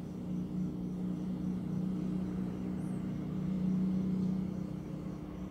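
Steady low mechanical hum that swells a little past the middle, with a faint high ticking about four times a second.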